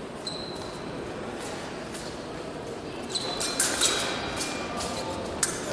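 Épée bout in progress: sharp clicks and knocks of blades and footwork on the piste, bunched together a little past halfway with one more near the end, over the noise of a large hall.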